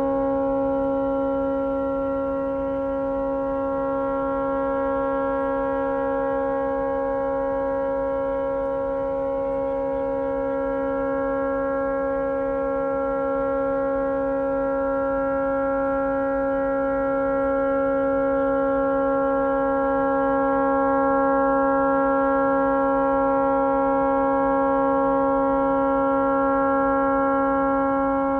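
A tugboat's air horn stuck on, sounding one continuous unbroken chord at steady pitch: the horn has malfunctioned and will not shut off.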